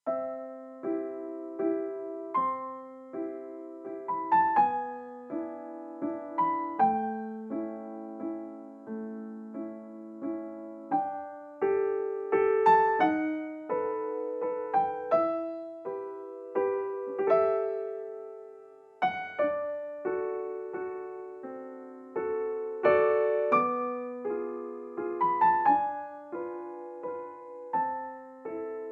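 Background piano music: a gentle, unhurried melody with chords, each note struck and fading.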